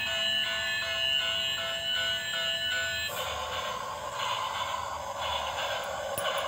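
Battery toy steam train playing its electronic tune of beeping, stepping notes. About three seconds in the tune cuts off and a steady hiss follows, the toy's steam sound as it runs on its track.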